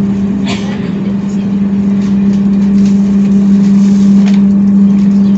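Diesel-hauled local passenger train rolling slowly along the platform: a steady, even engine hum at one constant pitch over the rumble of the coaches, with a couple of faint clicks.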